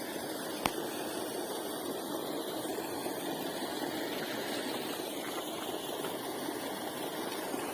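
Steady rushing background noise with no distinct pattern, and a single sharp click under a second in.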